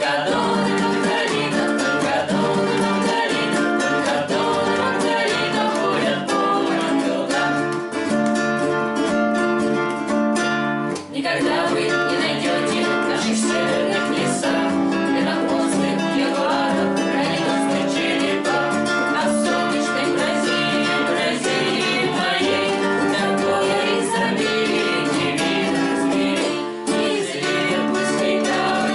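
Acoustic guitars strummed while a small group of voices sings together, with a brief break about eleven seconds in.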